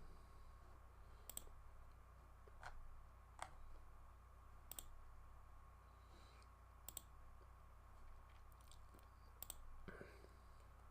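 Faint, scattered clicks from a computer mouse or keyboard, about seven or eight single clicks spread irregularly, over a steady faint electrical hum.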